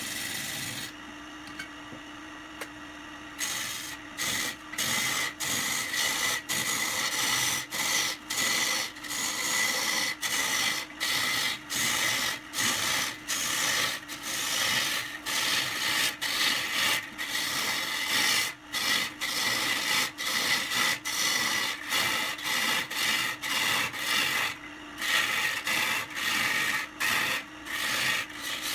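Repeated rasping strokes of a tool rubbing on wood, about two a second, after a steadier quieter stretch at the start.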